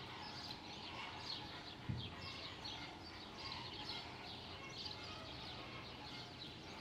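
Small birds chirping and twittering continuously over a low background rumble, with a single soft low thump about two seconds in.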